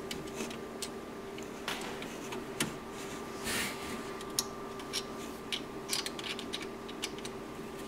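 Scattered small clicks and scrapes of hands fitting bolts and parts into a 3D printer's extruder assembly, over a faint steady hum.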